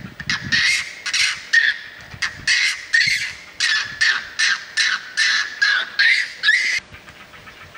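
An animal's short, harsh calls repeated about twice a second, stopping suddenly near the end.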